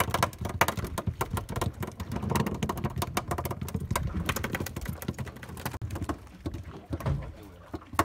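A freshly caught small fish flapping while being unhooked by hand: a rapid, irregular patter of slaps and taps that thins out near the end.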